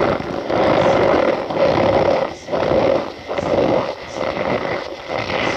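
Cornstarch cakes and balls crushed in the hand, giving a squeaky, crunching squeal in a run of squeezes about a second apart.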